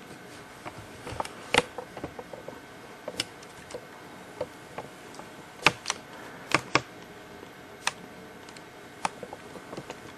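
Irregular light clicks and taps from handling the netbook, fingers on its keys and plastic case, a dozen or so at uneven spacing over a faint steady hum.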